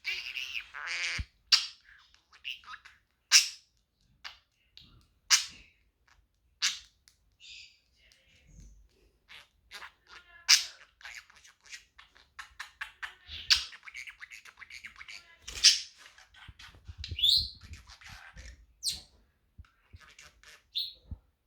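Pet budgerigar chattering non-stop: a rapid stream of high-pitched warbles, clicks and mumbled squeaks, with a few loud sharp chirps scattered through it.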